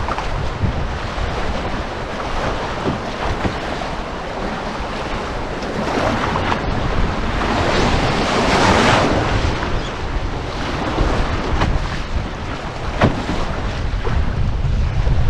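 Whitewater rapids rushing around a canoe, with wind buffeting the microphone. The water swells louder for a few seconds in the middle as the boat goes through the waves, and there is a sharp knock about 13 seconds in.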